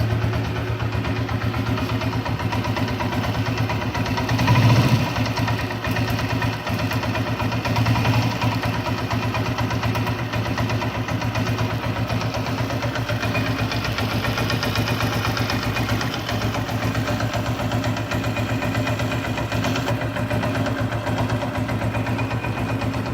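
Honda CG 125's air-cooled single-cylinder four-stroke engine idling with a knock coming from the engine. It is briefly revved about five seconds in, and more lightly again a few seconds later.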